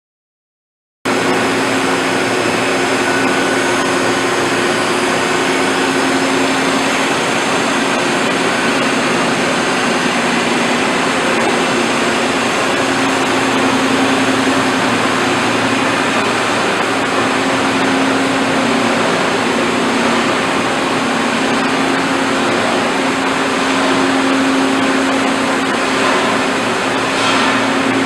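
CNC horizontal boring mill running: a steady mechanical hum and whir that starts abruptly about a second in and holds without a break.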